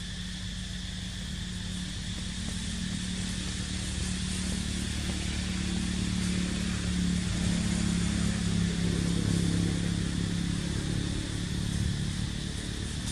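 Engine of a passing motor vehicle, a low steady drone that grows louder through the middle and eases off near the end, over a constant high hiss.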